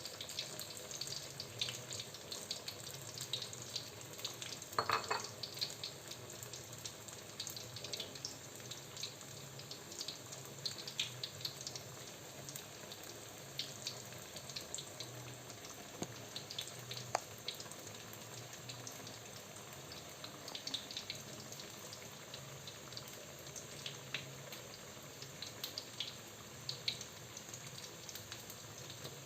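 Flour-battered tempe frying in hot oil: a steady sizzle with scattered small pops and crackles.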